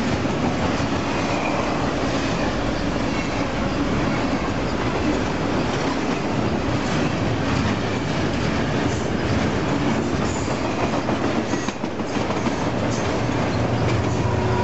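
Double-stack container cars of a freight train rolling past at speed: a steady rumble with the clatter of steel wheels over the rails. About thirteen seconds in, a steady diesel locomotive engine hum comes in as a locomotive in the train approaches.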